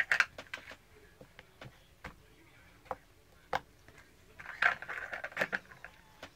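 Homemade slime being handled and pressed by hand, giving a scattered series of small sharp clicks and pops, with a denser run of squishy crackling about four and a half to five and a half seconds in.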